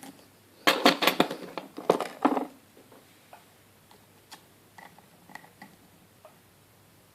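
Metal clicking and rattling of a curve pick and tension wrench working the pins inside a Yale Y120/50 high-security padlock. A quick flurry of clicks comes about a second in, followed by a few faint, scattered ticks as the pins are set.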